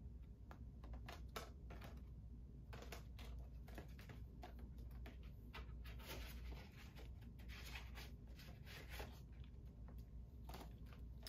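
Faint handling of cardstock prints and Blu-ray packaging: scattered light taps and clicks with a few short rustles, over a low steady room hum.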